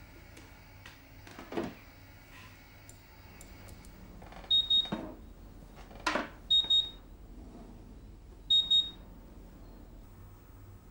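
Light curing unit beeping: three short high beeps about two seconds apart, amid a few clicks and knocks as its drawer and buttons are handled.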